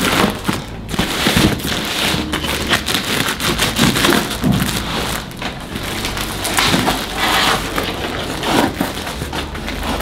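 A cardboard product box being opened and its packing handled: dense, irregular crackling, scraping and rustling of cardboard and wrapping.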